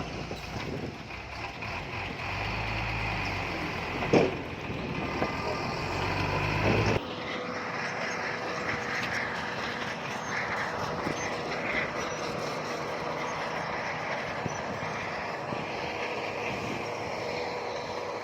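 Heavy diesel earthmoving machinery running. A deep engine drone is broken by a sharp knock about four seconds in. About seven seconds in the sound changes suddenly to a thinner, steady machine noise with a steady whine.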